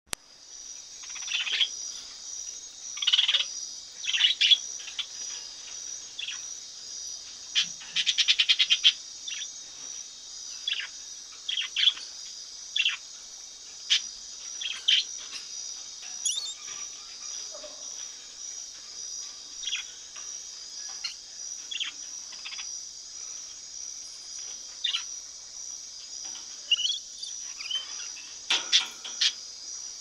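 Rainbow lorikeet giving short, sharp screeching calls at irregular intervals, with a rapid trill about eight seconds in and a cluster of calls near the end, over a steady high insect chorus.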